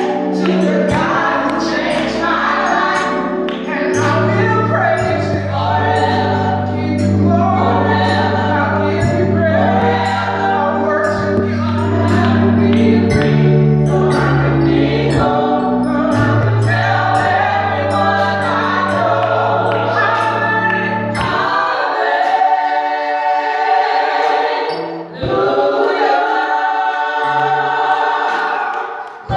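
Gospel choir singing with instrumental accompaniment and a bass line. The bass and instruments drop out about two-thirds of the way through, leaving the choir's voices nearly alone.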